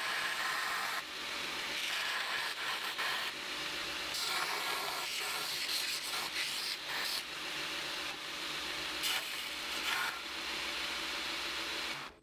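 Belt grinder grinding a steel ulu blank cut from saw-blade steel, the piece held against the running abrasive belt to shape its profile. A continuous grinding rasp that swells and dips as the steel is pressed on and eased off, and cuts off abruptly at the very end.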